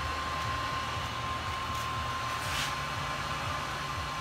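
A home-brewing recirculation pump runs steadily, sending strike water back into the electric kettle through a whirlpool arm. The sound is an even rushing hiss over a low hum with a thin steady whine, and a brief louder swish comes about two and a half seconds in.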